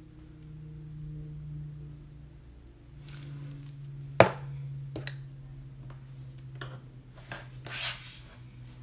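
Tabletop handling sounds: a sharp knock about four seconds in as a plastic liquid glue bottle is set down on the table, a lighter tap about a second later, and brief rustles of hands and paper, over a low steady hum.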